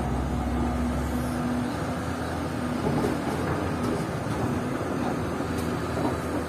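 A motor vehicle engine running steadily with a low hum, with a few light knocks in the middle.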